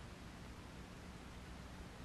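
Steady hiss with a low electrical hum underneath: recording background noise, nothing else.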